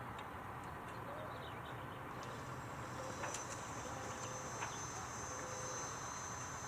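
Steady background hiss with a few faint short chirps and clicks, and a thin, high, steady whine that comes in about two seconds in.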